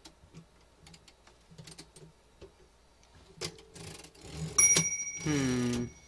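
Royal HH typewriter carriage giving faint clicks as it is shifted against the margin stops, then the typewriter's margin bell strikes once with a bright ding that keeps ringing. A short falling voiced sound comes just after the ding.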